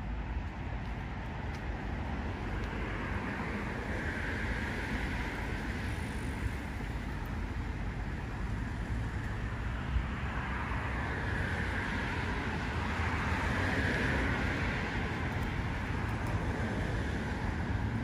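Steady city traffic noise with a low rumble, swelling as vehicles pass about four seconds in and again from about ten to fifteen seconds in.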